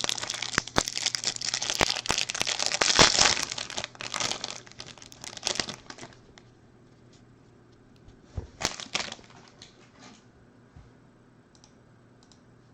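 Foil trading-card pack wrapper being torn open and crinkled by hand: a dense crackling rustle for about six seconds, then a short crinkle near nine seconds.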